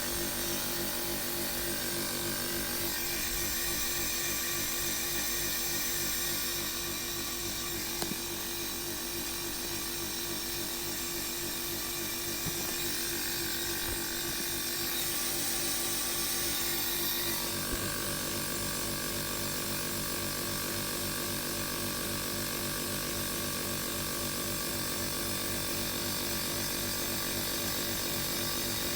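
Small compressor of a portable air conditioner running with its fans removed, a steady electric hum with a dense buzz of tones over it and a faint liquid sound of refrigerant moving; the uploader calls it an odd noise. The tone shifts slightly about two-thirds of the way through.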